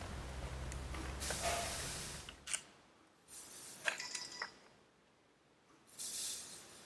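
Hand tools and hardware as the recoil starter housing of a Yamaha 15 outboard is unbolted and lifted off: a low steady hum that stops about two and a half seconds in, then a sharp click, a few small clicks and a light clink, and a brief rustle near the end.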